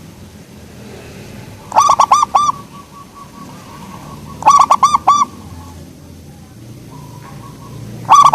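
Zebra dove (perkutut) cooing: three phrases, each of four or five quick rolling notes, about three seconds apart, with a faint soft trill between them.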